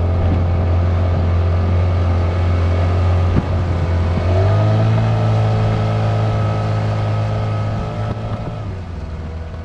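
15 hp outboard motor running under way on a small inflatable boat, with water rushing past the hull. About four seconds in, its pitch rises a little as it picks up speed, then holds steady.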